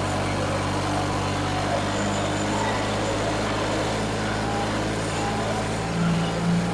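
New Holland 3630 tractor's diesel engine, turbocharged with a modified fuel pump, running hard under heavy load as it pulls a cultivator, with enough pull to lift the front wheels. Steady, even engine note.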